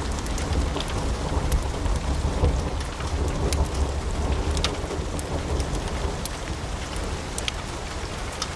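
Wood fire crackling in a fireplace: scattered sharp pops and snaps over a steady hiss and low rumble.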